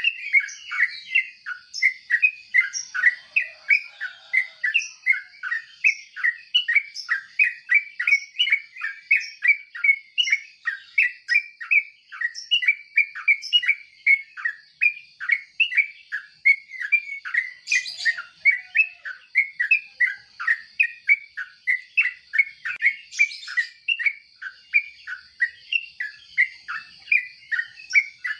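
Yellow-vented bulbul (trucuk) calling: a steady run of short, sharp chirps, about three a second, without a break.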